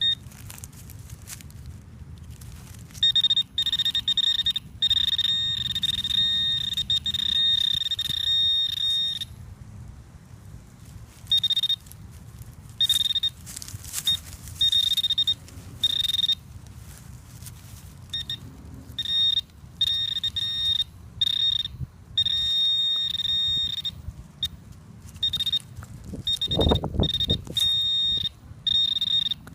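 Metal detector sounding a high-pitched target tone, held steadily for several seconds and then coming in short beeps as the coil is swept over a buried target, with rustling in the leaves underneath.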